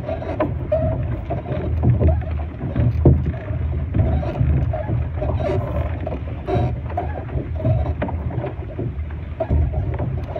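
Water splashing and slapping against a small sailing dinghy's hull in choppy waves, with wind on the microphone: a steady low rumble broken by irregular knocks.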